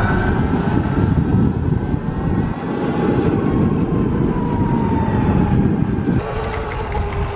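Heavy wind rumble on the microphone while riding a Sur-Ron electric dirt bike, with the motor's faint whine gliding up and down in pitch. The rumble eases off about six seconds in.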